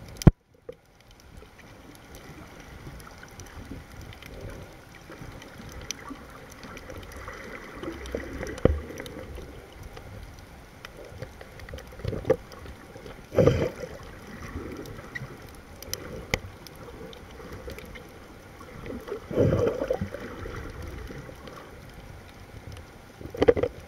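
Muffled underwater water noise picked up by a submerged camera, with scattered faint clicks and louder surges of water about halfway through and again later on.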